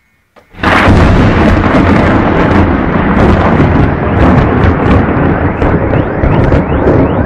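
Close thunderclap: a sudden loud crack about half a second in, then a long, loud rolling rumble with crackles. Near the end a repeating rising electronic tone starts up.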